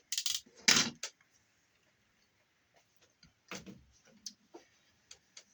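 Sharp clicks, snaps and brief rustles of insulated copper wire being stripped and handled by hand, a loud snap under a second in and another about three and a half seconds in, with quiet gaps between.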